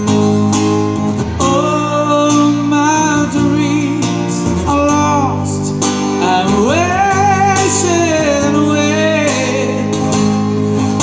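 A voice singing long, drawn-out notes with a wavering pitch in a slow love ballad, over strummed acoustic guitar chords.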